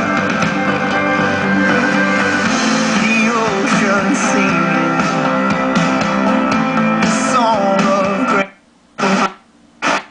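Guitar-led song with vocals played through a Yamaha AX-592 stereo amplifier and its speakers; about eight seconds in the music cuts out twice, with a short burst of sound between the gaps.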